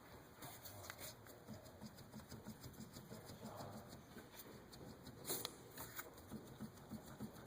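Faint, rapid knocking, about four knocks a second, from a 2005 Honda Odyssey's front stabilizer bar being shaken by hand, with a couple of sharper clicks partway through. The bar's bushing has free play, letting the bar bounce back and forth: the source of the front-end clunk over bumps.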